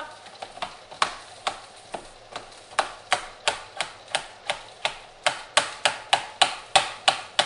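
Kitchen knife slicing matsutake (tanoak) mushrooms on a cutting board: sharp knocks of the blade hitting the board. They come irregularly at first, then settle into a steady rhythm of about three cuts a second that grows louder.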